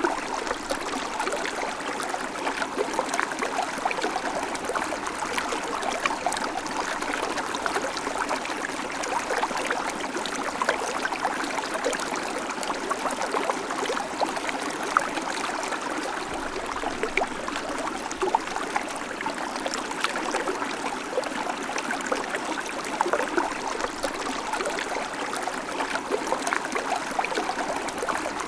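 A babbling creek: water running steadily over stones, with many small splashes and trickles.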